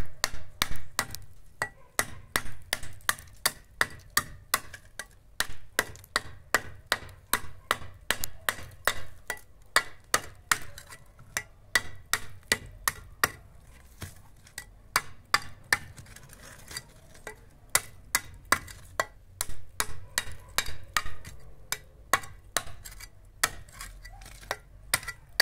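Steel masonry trowel edge striking a hollow clay brick again and again, about two to three sharp knocks a second, scoring a line so the brick can be broken by hand without a saw.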